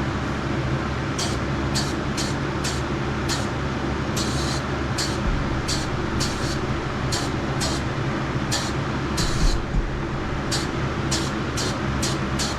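Spray booth exhaust fan running with a steady hum. Over it, a powder coating gun is triggered in short hissing puffs of air, irregularly, about one or two a second, with a couple of longer sprays.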